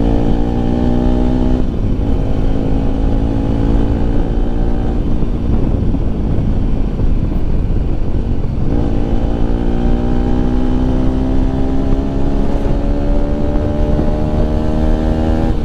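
Bajaj Pulsar RS 200's single-cylinder engine with its stock exhaust, heard while riding. The engine note climbs slowly and drops at a gear change about two seconds in, then fades into road and wind noise for a few seconds in the middle. It climbs steadily again from about nine seconds and drops once more at the end.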